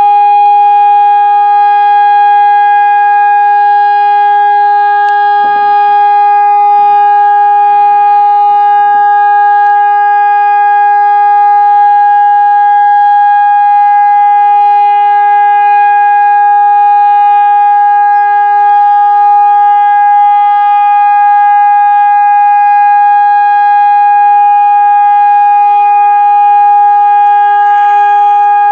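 Hörmann ECN electronic warning siren sounding a loud, steady continuous tone at close range, with no rise or fall in pitch, the form used for an all-clear signal. A weaker lower steady tone sits beneath it, and a few low thumps come about six to nine seconds in.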